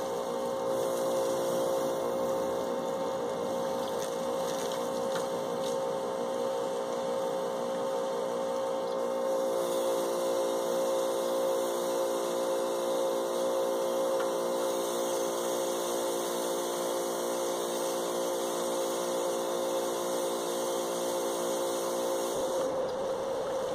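Karcher 1900 psi electric pressure washer running steadily, its motor and pump humming under the hiss of water spraying from the soap nozzle. The hum cuts off abruptly about 22 seconds in, while the hiss continues.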